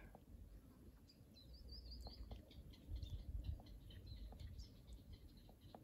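Faint bird chirps: a quick run of short high notes about a second and a half in, then a few scattered chirps, over a low rumble.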